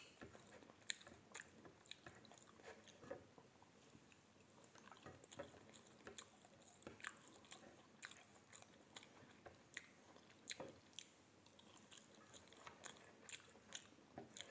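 Faint close-up eating sounds: chewing on rice and fried tempe, with scattered small, irregular clicks of mouth and fingers, and one sharper click at the very start.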